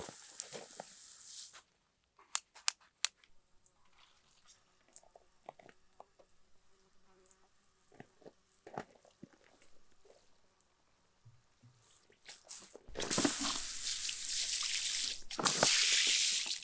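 A hissing noise that stops about a second and a half in, then scattered sharp clicks and knocks. Near the end come two long, loud bursts of hissing noise.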